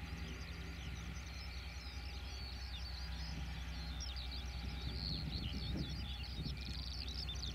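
Class 47 diesel locomotive's Sulzer twelve-cylinder engine droning steadily as the train draws away. Many quick bird chirps over the top.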